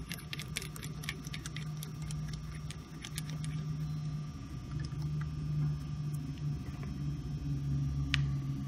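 Light metallic clicks and ticks of bolts being turned in by hand on a hydraulic vane pump's rear cover, thick in the first few seconds, then one sharper click near the end. A steady low hum runs underneath.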